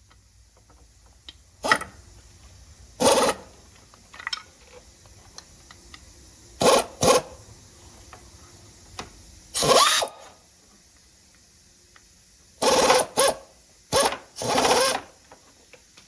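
Impact driver hammering in short bursts, about eight in all, each under a second, while loosening the tight bolts that hold the stator inside a Kawasaki ZX6R's stator cover.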